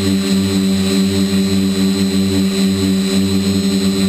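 RC quadcopter's electric motors and propellers buzzing steadily in flight, heard up close from the camera on its frame: a low steady hum with a thin high whine above it.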